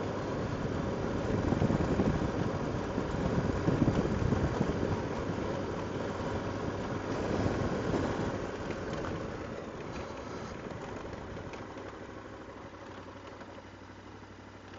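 Motorcycle engine running at low speed while the bike rolls over a cobblestone lane, the tyres rumbling on the cobbles. The sound fades off over the last few seconds as the bike slows.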